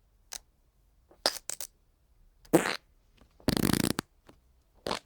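Wet fart sound effects, one after another: several short splats, a louder one about two and a half seconds in, then a half-second rapidly pulsing one. Near the end a quick run of short wet pops begins.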